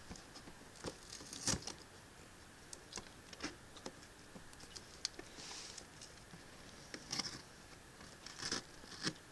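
Faint, scattered taps, clicks and short rustles of a boxed action figure's cardboard packaging being handled, about nine sounds spread through the stretch.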